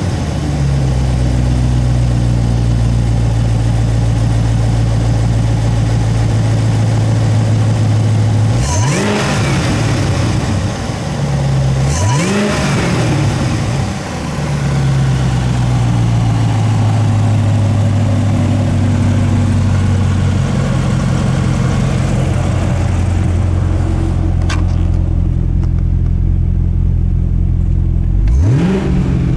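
Supercharged 6.2 L LT4 V8 of a 2017 Cadillac CTS-V idling just after start-up. The throttle is blipped twice, about 9 and 12 seconds in, each rev rising and falling quickly, and revved again near the end.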